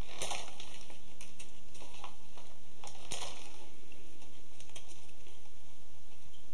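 A knife trimming thin pine splints at the rim of a woven basket bottom: a few short crisp clicks and scrapes, the strongest about three seconds in, over a steady low hum.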